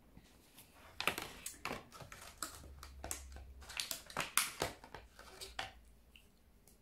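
Magnetic false-eyelash kit being handled: a string of irregular small clicks and rustles as the lashes are taken out of their case.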